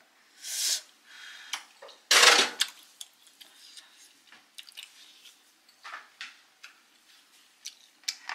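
Wooden chopsticks working in a glass food container: a few short scrapes and clatters, the loudest about two seconds in, then small clicks near the end as a plastic lid is set on the container.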